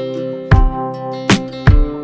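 Background music on acoustic guitar: plucked and strummed chords, with three sharp strums about half a second, one and a quarter, and one and three-quarter seconds in.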